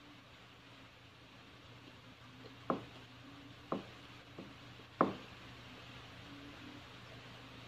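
Eating rice and curry by hand from a plate: three short, sharp clicks spread over a couple of seconds, with a weaker one between, over a faint steady hum.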